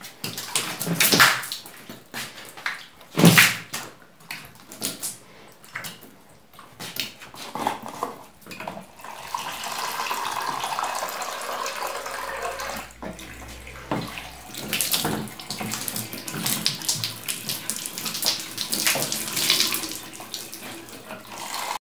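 Water thrown by hand from a small container splashing against the tiled walls and floor of a bathroom as it is rinsed, in repeated splashes. Water runs steadily for a few seconds in the middle.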